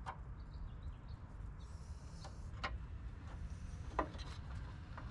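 A few light, sharp clicks and taps, with the loudest about four seconds in, from the metal end of a hood release cable being worked into its latch and locked down. A low steady rumble sits underneath.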